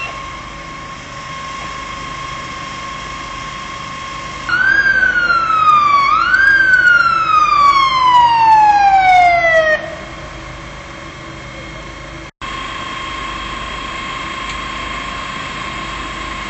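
Emergency vehicle siren wailing, loud: it rises and falls twice, then slides down in pitch and stops, about six seconds in all. A steady high-pitched whine runs under it.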